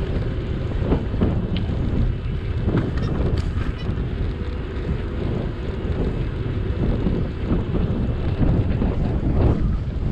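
Wind buffeting the action camera's microphone while riding an electric mountain bike, a steady rumble with scattered short knocks as the bike goes over bumps.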